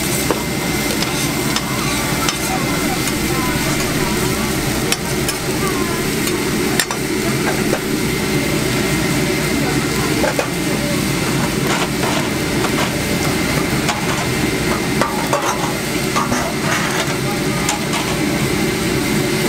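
Egg, minced pork and rice sizzling on a flat iron teppanyaki griddle, with scattered sharp clicks and scrapes of metal spatulas on the plate over a steady low hum.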